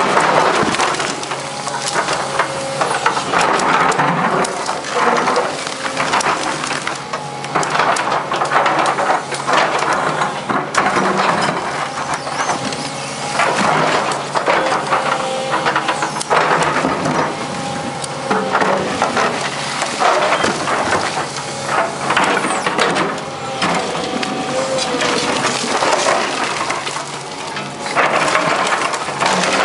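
A Daewoo tracked excavator's bucket ripping up and breaking slabs of reinforced concrete: repeated crunching, cracking and scraping of concrete and rubble, over the engine's steady running and a wavering hydraulic whine.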